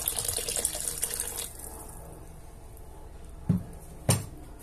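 Water poured into a cast-iron pan of rice and beef rib in broth, splashing for about a second and a half. Two short, dull knocks follow near the end.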